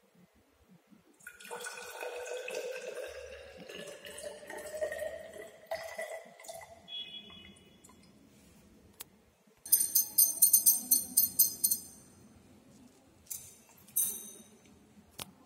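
Distilled water poured from a glass beaker into a glass Nessler cylinder, its pitch rising slowly as the cylinder fills. About ten seconds in, a glass stirring rod clinks rapidly against the cylinder's walls, with a few more clinks near the end.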